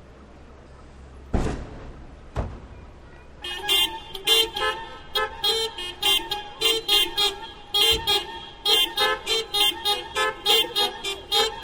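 Several car horns sounding short hoots in turn, interlocking into a fast rhythmic hocket of about three hoots a second that starts about three and a half seconds in. Before that there are two thumps.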